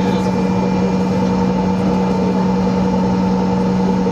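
Steady drone inside the cabin of a parked Bombardier CRJ900 with its main engines shut down: a low hum with a few higher steady tones above it, from the auxiliary power unit and the cabin air-conditioning.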